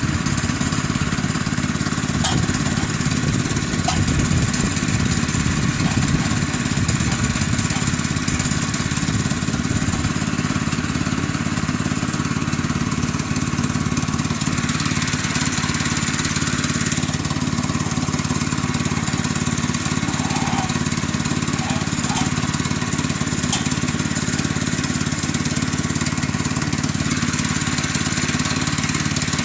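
Small gasoline engine on a Woodland Mills HM122 portable bandsaw mill running steadily at idle, with no cut being made. A few light knocks sound over it.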